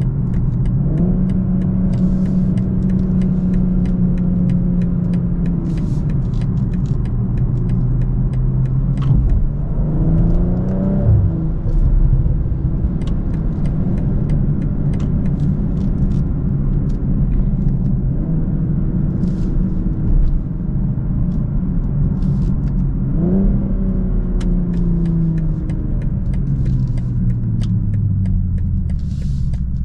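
BMW M240i xDrive's 3.0-litre turbocharged straight-six running under way: the engine note climbs under acceleration three times and holds steady between the climbs, then winds down near the end as the car slows. Short clicks and ticks sound over it throughout.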